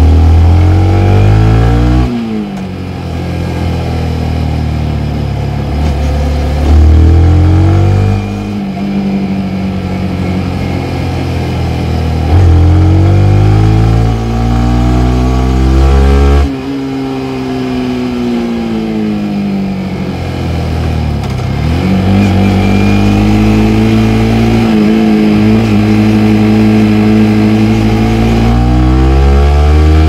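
Yamaha MT-15's single-cylinder engine through its stock exhaust while riding: it revs up and drops back several times as it shifts through the gears. In the middle it falls away for several seconds as the bike slows, then it climbs again and holds a steady pitch near the end.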